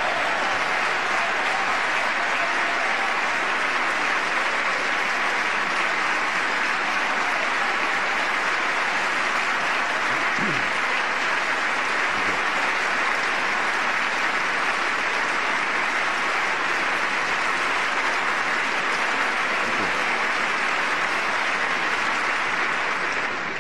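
A large audience applauding steadily, a long sustained ovation.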